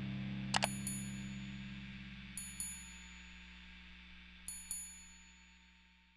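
Outro music fading out: a steady low drone with paired chime hits that ring on, coming about every two seconds.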